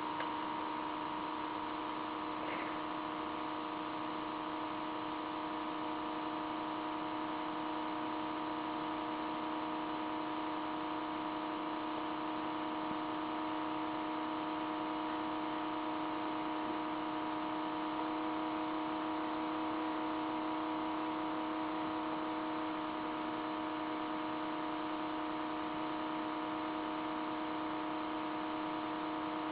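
Apple iBook laptop giving off an abnormal noise: a steady, unchanging hum made of several pitches held together.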